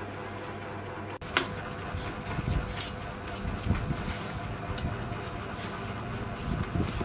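A hand peeler scraping the green skin off a winter melon in repeated short, irregular strokes, with a sharp click about a second and a half in. A steady low hum stops about a second in, just before the peeling starts.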